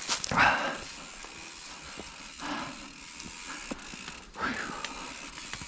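Footsteps crunching on a dry dirt-and-gravel trail strewn with dead leaves: three short scraping bursts about two seconds apart, with a few small sharp clicks between them.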